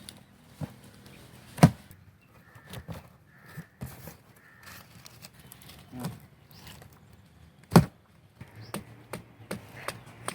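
Harsh bird calls between two sharp knocks about six seconds apart, the knocks being the loudest sounds, with a run of quick light taps near the end.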